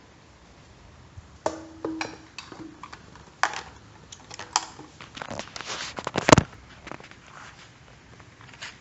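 Irregular knocks and clatter of hard objects being handled, in a quick cluster, with the loudest knock about six seconds in. No engine is running.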